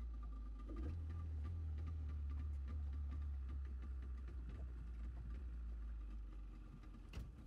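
Outboard motor of a small fibreglass boat running steadily while under way, over a heavy low rumble. A single sharp click near the end.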